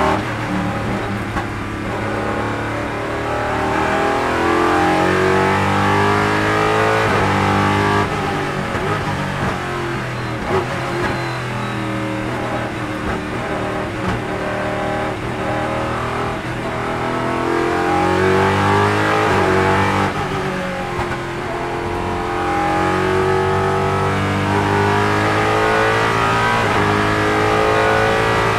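Ford GT GT1 race car's 5.3-litre Roush Yates V8, heard from inside the cockpit, accelerating hard through the gears, its pitch climbing and dropping back at each upshift. About two-thirds of the way through it comes off the throttle briefly, then pulls up through the gears again.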